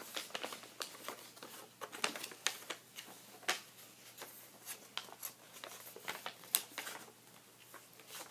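A sheet of paper being handled and folded, rustling and crinkling in a scatter of irregular short crackles.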